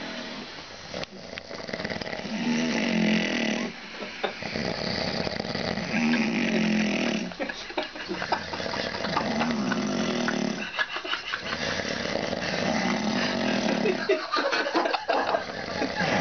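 A person snoring in their sleep: a drawn-out rough snore on each breath, repeating about every three and a half seconds.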